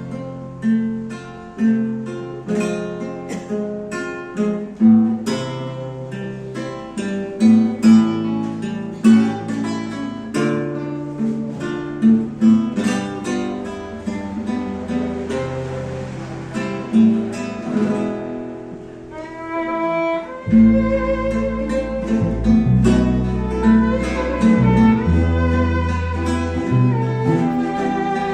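String ensemble playing an instrumental passage: two Venezuelan cuatros and a guitar pluck a melody over chords. About two-thirds of the way in, a violin enters with a wavering line and an electric bass joins underneath just after.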